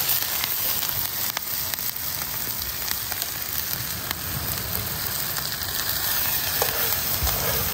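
Diced onions and garlic sizzling in butter in a steel pan over a campfire: a steady frying hiss with scattered small pops.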